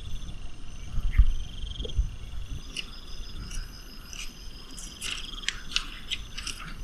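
High-pitched pulsed trills repeat in the background, several at different pitches, over soft low handling bumps. A run of sharp clicks and taps comes in during the last two seconds.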